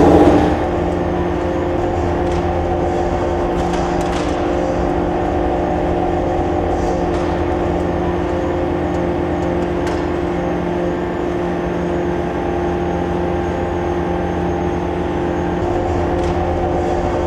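Steady drone of earthquake-simulator shake-table machinery running during a simulated magnitude-6 shaking test: a hum with several steady tones over a noisy bed, with a few faint clicks.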